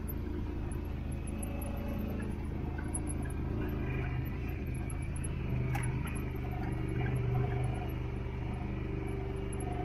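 Off-road vehicle engine running steadily while driving along, swelling a little about four to seven seconds in.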